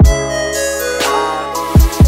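Background music: sustained chords with two deep bass-drum hits, one at the start and one near the end.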